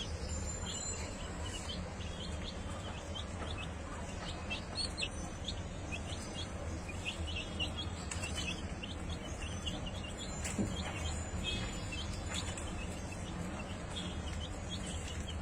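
Birds chirping: a dense run of short, high chirps throughout, over a steady low background rumble.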